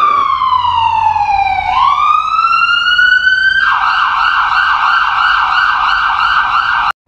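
Ambulance's electronic siren: a wail that slides down in pitch, then climbs back up over about two seconds, then switches to a fast warbling yelp before cutting off suddenly near the end.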